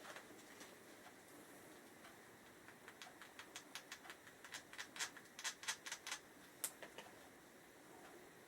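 Faint, irregular light clicks and taps, a dozen or so over about four seconds starting a few seconds in, from hand work on a motorcycle brake caliper mounting bolt.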